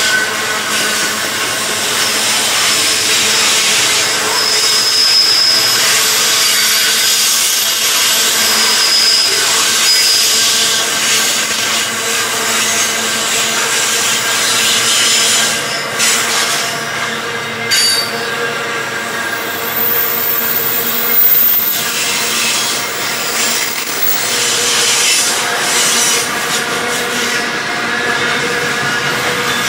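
A string of grain hopper wagons rolling past on steel wheels, a steady rumble and rattle, with brief high-pitched wheel squeals a few times in the first ten seconds and a couple of sharp knocks about two-thirds of the way through.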